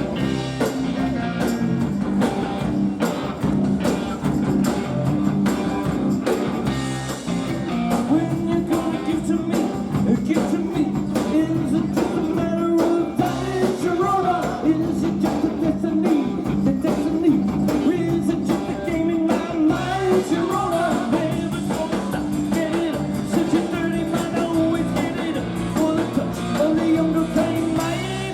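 Live rock band playing a song, electric guitar over bass and a steady drum beat.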